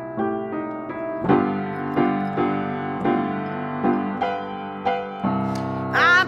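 Piano playing a blues accompaniment on its own, a run of struck chords. A woman's singing voice comes back in near the end.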